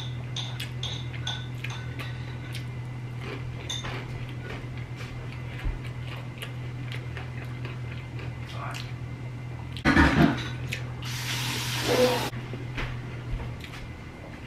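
Close-miked eating sounds of a person chewing and biting into sauced chicken wings and tenders, with small wet clicks and smacks, over a steady low hum. About ten seconds in a louder bite comes, followed by a noisy rustle lasting about a second.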